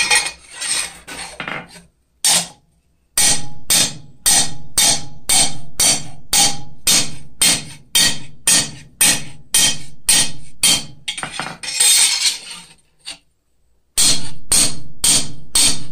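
A hand hammer strikes the edge of a cold steel cross blank on an anvil in a steady run of quick blows, about three a second, texturing the edge. The hammering pauses briefly near the end, then starts again.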